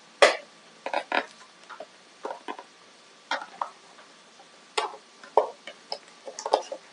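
Scattered clicks and short rustles of cable boxes and packaging being handled.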